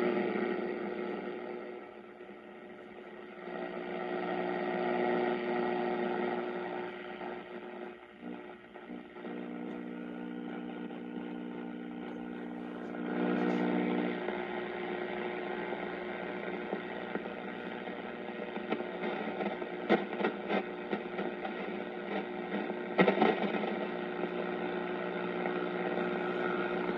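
Hiss and static from the 1939 Philco 40-120 radio's speaker as it is tuned across the 160-meter band, with steady tones running through the noise. The level swells and dips over the first half, and sharp crackles come in during the second half.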